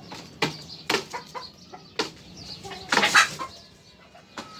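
Chickens clucking in a coop, with a few sharp knocks and a loud flurry of wing flapping about three seconds in.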